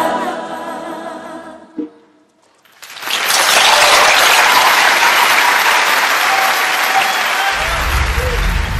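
A choir's last sung note fades away, and after a brief pause an audience breaks into steady applause. Near the end, music with a deep bass comes in under the clapping.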